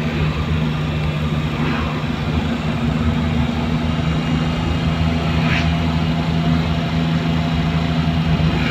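Steady engine hum and road noise of a moving car, heard from inside its cabin.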